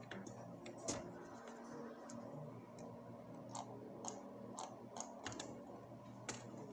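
Faint, irregular clicks of computer keyboard keys: about eight separate clicks, unevenly spaced, over a quiet room background.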